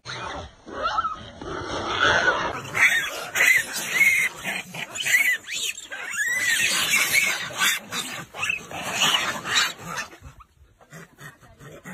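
A troop of macaques squealing and screeching, many short rising-and-falling calls overlapping one another, dying away about ten seconds in.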